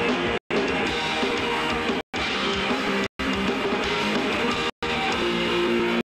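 Live rock band playing loud, with electric guitar to the fore. The sound cuts out to silence for a split second about five times, roughly once a second.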